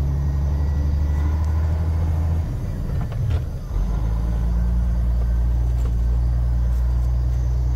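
Heavy vehicle's diesel engine running, heard from inside the cab while it drives slowly through a soft, muddy field. About three seconds in, the engine drone breaks up and dips for a moment, then comes back steady and slightly lower.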